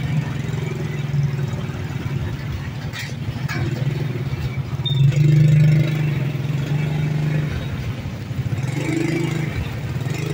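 Small motorbike engine running at low speed, with the throttle opened briefly about five seconds in.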